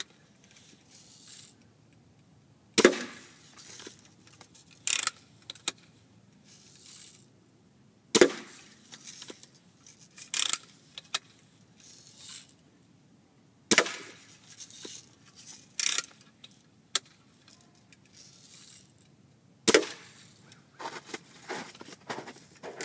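BB gun fired four times, roughly five to six seconds apart, each shot a sharp crack. Smaller clicks and rattles come between the shots as the gun is cocked and handled.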